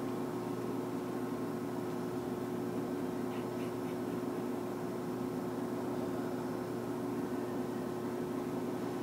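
Large Mazak Oil Country hollow-spindle engine lathe running, its motor and headstock gearing giving a steady hum with a few constant tones, with a couple of faint light ticks about three and a half seconds in.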